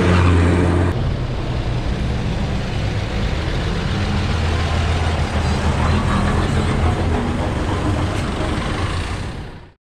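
A motor vehicle's engine running with road noise: a steady low drone whose pitch shifts about a second in. It cuts off abruptly just before the end.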